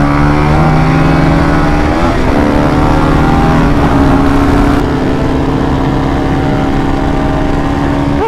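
Supermoto motorcycle engine pulling at road speed, its note climbing in short steps over the first few seconds and then holding steady at cruise, with wind rushing over the microphone.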